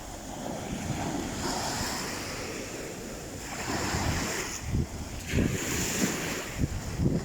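Sea waves washing on a shore, with wind buffeting the microphone in uneven gusts that grow stronger about halfway through.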